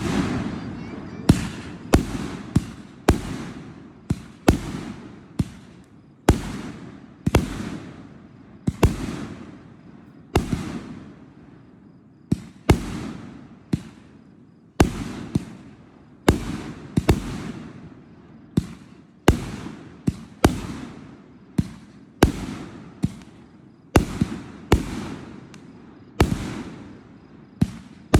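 Fireworks display: aerial shells bursting in a steady run of loud bangs, about one a second and sometimes two in quick succession, each followed by a long fading echo.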